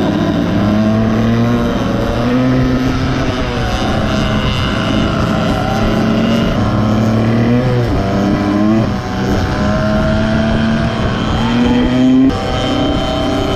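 Two small pit bike engines running together at speed, mostly holding a steady pitch, with revs rising and falling about eight seconds in and again near twelve seconds.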